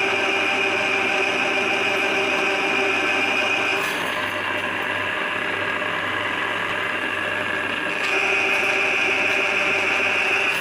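Electric drain-cleaning machine running, spinning a coiled steel spiral cable down a clogged bathroom floor drain. It runs steadily, easing off a little in the middle before picking up again.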